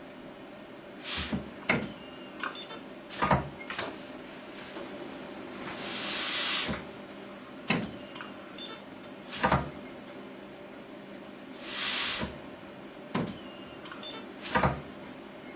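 Air-actuated opposed weld head on a capacitive-discharge resistance spot welder cycling: sharp clacks as the pneumatic head closes the electrodes on the steel straps and the weld fires, then a hiss of exhausting air as the head opens, twice over, with a steady low hum underneath.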